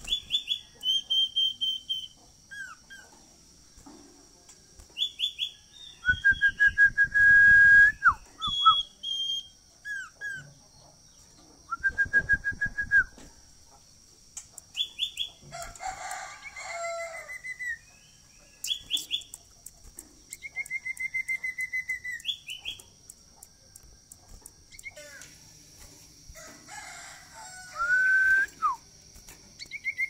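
Common iora (cipoh) singing in its cage: repeated phrases of clear whistled notes, some short, fast and high, others longer and lower, one dropping away in a downward slur.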